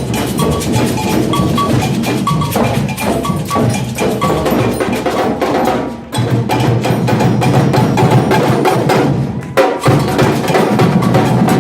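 Samba bloco drum line playing live, a loud driving percussion rhythm of drums and bells. The beat dips briefly about halfway through and cuts out for an instant a little before the end, then comes straight back in.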